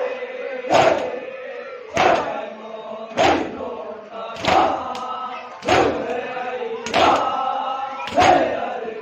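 A crowd of men chanting a nauha in unison while doing matam. Their hands come down on their chests together in a steady beat, about once every 1.2 seconds.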